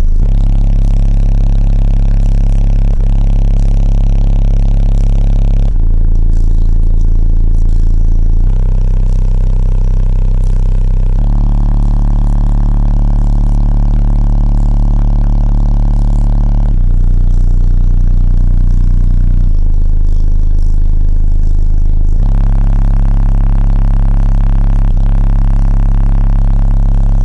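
Three 10-inch subwoofers in a hatchback's cargo area playing loud, deep sustained bass notes that step to a new pitch every few seconds.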